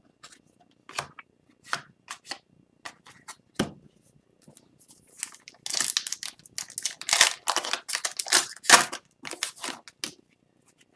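Foil wrapper of an Upper Deck hockey card pack crinkling and tearing as it is opened by hand, with scattered rustles that turn into a dense run of crackling about halfway through.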